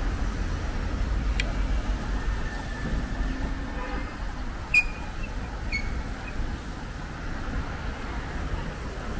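City street traffic noise with a steady low rumble. A few short, sharp high clicks cut through it, the loudest about halfway through.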